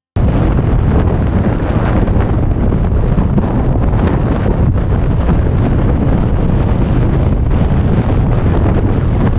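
Wind buffeting a motorcycle-mounted camera's microphone at riding speed, over the low rumble of a 2017 Harley-Davidson Street Glide Special's V-twin. The noise cuts in suddenly right at the start, then stays steady.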